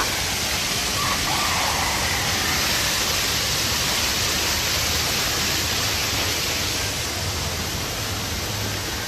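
Steady rushing of running water, an even hiss without breaks.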